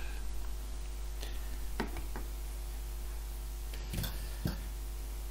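A few light clicks and taps from hands handling a stripped metal power-supply module, over a steady low hum.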